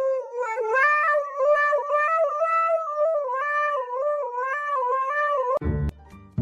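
A cat's long, wavering yowl, held unbroken and sliding between pitches for about five seconds before cutting off abruptly; a few low knocks follow near the end.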